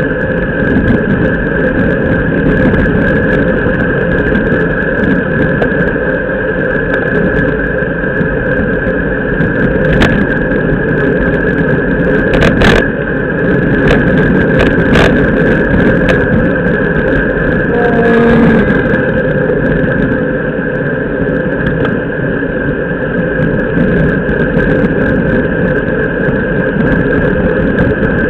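Wind buffeting and road and tyre noise picked up by a camera mounted on a racing bicycle riding in a peloton, loud and steady, with a steady high tone running through it. A few sharp clicks or knocks come partway through, and a short pitched sound about two-thirds of the way in.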